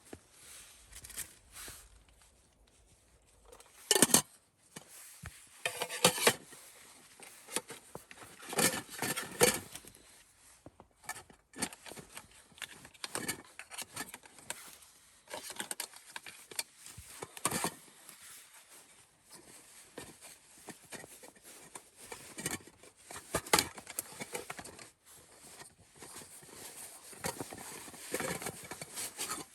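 Irregular handling noises: scraping, clinking and knocking of gear being moved about, with sharper knocks about 4 s, 9 s and 23 s in.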